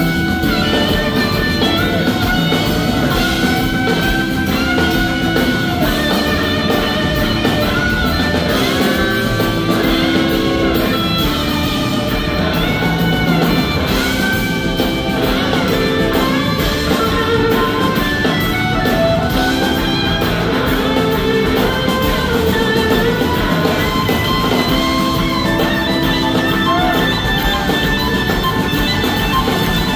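Live rock band music: electric guitars playing, with notes that glide up and down in pitch, over a drum kit.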